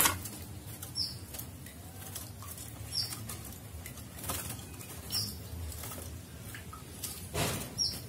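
A young wild-caught common iora (cipoh) fluttering its wings in a small wooden cage while cups are set inside, with short sharp sounds every second or two. The bird is still fearful of people.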